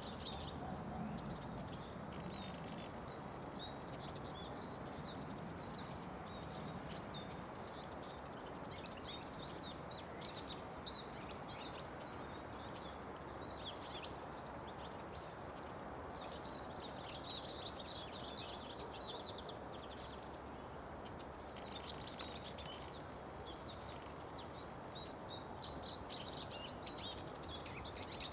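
Small songbirds chirping and twittering in quick high clusters that come and go every few seconds, over steady background noise.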